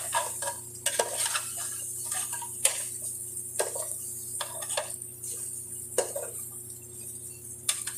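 Metal spoon stirring chicken pieces in a metal cooking pot, scraping and clinking irregularly against the pot's sides and bottom. A steady low hum runs underneath.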